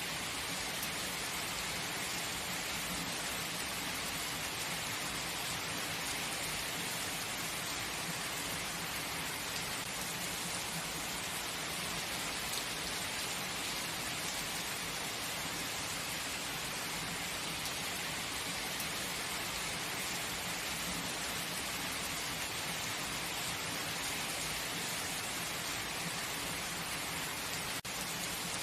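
Steady rain falling as an even, dense hiss, with a momentary dip in level near the end.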